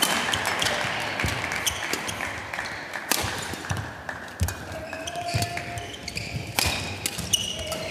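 Badminton rally: rackets striking the shuttlecock in a series of sharp hits spaced about one to three seconds apart, with short squeaks between them.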